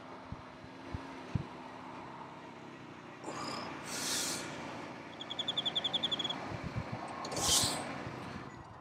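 Ford Transit van's engine idling low and steady, with birds calling over it, including a fast trill of short high notes lasting about a second midway through.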